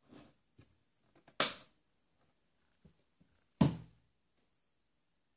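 Handling noise as hands move over the wired-up module: two sharp knocks, about a second and a half in and at about three and a half seconds, with a fainter tap at the start.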